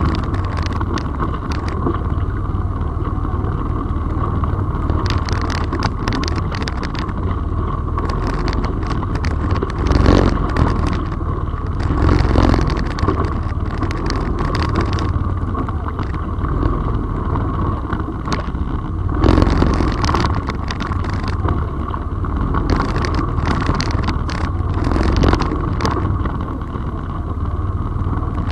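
Off-road vehicle's engine running steadily while driving a rutted dirt trail, with scattered knocks and rattles from the bumps and a few louder swells.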